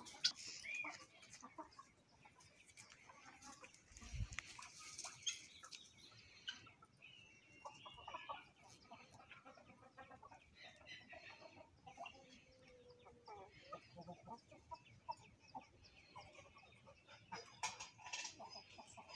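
Chickens clucking in short, scattered calls, with louder bursts of clucking at the start, a few seconds in, and near the end.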